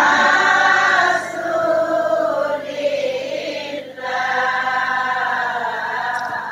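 A congregation of mostly women's voices singing a salawat refrain together in response to the leader's call. The singing dips briefly about four seconds in, then carries on.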